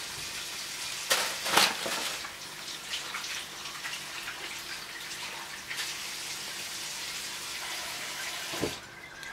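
Steady rushing hiss like running water, broken by a few brief louder clattering noises about a second in and again near the end.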